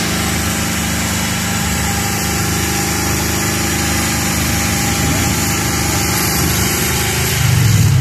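Off-road race buggy's engine running steadily at idle while the vehicle hangs on its winch cable on a steep slope. Near the end the engine note gets louder and deeper.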